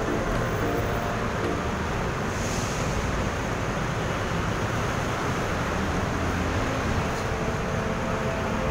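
Steady roar of city traffic from a busy road, an even noise without breaks.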